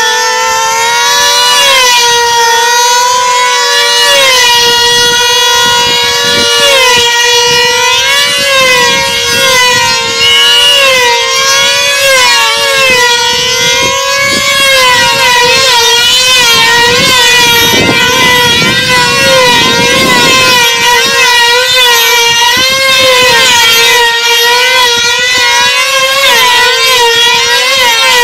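Two F2D control-line combat model aircraft, their small two-stroke engines screaming at a very high pitch, the pitch rising and falling with each lap as they circle the pilots.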